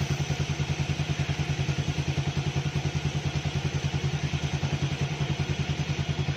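Bajaj Pulsar 220's single-cylinder engine idling steadily in first gear, the bike on its centre stand so the chain and rear wheel spin freely, with an even pulse of about a dozen beats a second.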